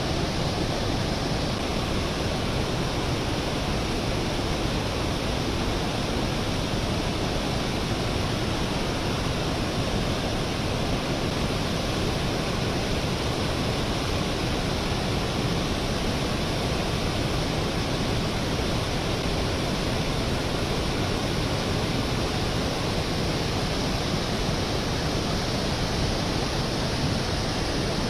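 Steady, even rushing noise of falling water.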